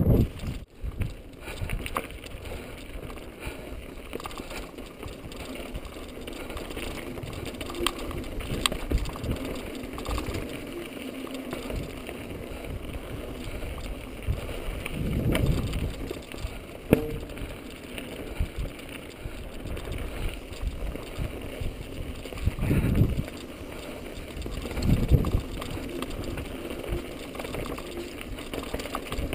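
Mountain bike rolling down rocky dirt singletrack, heard from a GoPro on the bike or rider: a steady rough rattle of tyres and frame over the dirt with scattered sharp clicks, and a few heavy low thumps as the bike hits bumps or wind hits the microphone.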